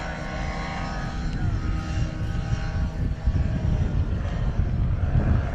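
Kolb ultralight airplane flying overhead, its engine and propeller running with a steady drone. The pitch falls slightly about a second in.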